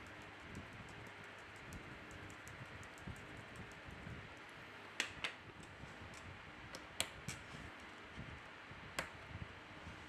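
Sharp little clicks and taps of a small screwdriver and parts being handled on an opened smartphone's frame and board, with a few louder clicks about halfway through and near the end, over a steady faint hiss.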